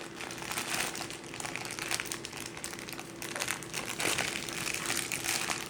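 Plastic packaging of dry udon-style noodles crinkling and rustling, with small irregular crackles, as noodles are handled and portioned out. A faint steady hum runs underneath.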